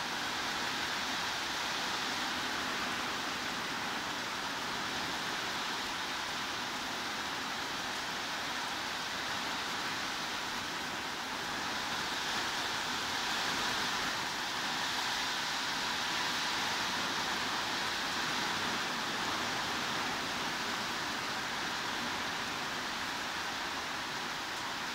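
Steady heavy rain, a dense even hiss that swells slightly about halfway through.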